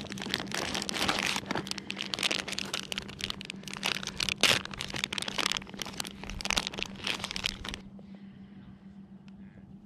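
Crinkling plastic as a bag of soft-plastic fishing baits is handled and opened by hand, a dense irregular crackle that stops abruptly about eight seconds in.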